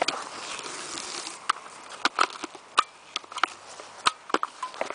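Irregular sharp clicks and light rattles from a bicycle's front end and handlebar, after a breathy rush of noise in the first second and a half.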